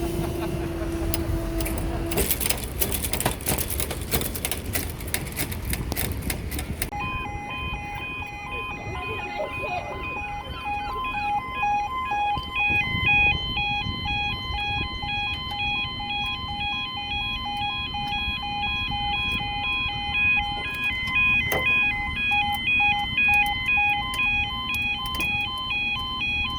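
A train passes over a level crossing with its wheels clattering. About seven seconds in, the crossing's electronic audible warning alarm starts and sounds steadily, alternating between two tones in a regular pattern.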